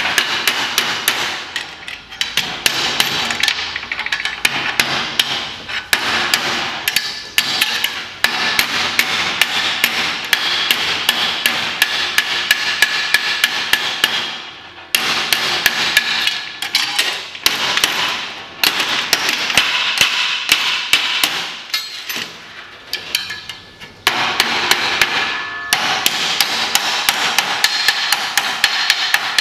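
Steel body hammer rapidly striking a clamped strip of sheet metal against a steel bar on a steel workbench, bending and shaping it. Runs of several ringing metal-on-metal blows a second, with a couple of brief pauses.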